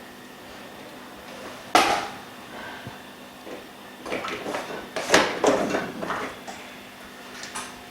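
Handling sounds of tools and parts on a repair bench: a sharp knock about two seconds in, then a run of clicks and clattering taps a couple of seconds later, and one light tap near the end.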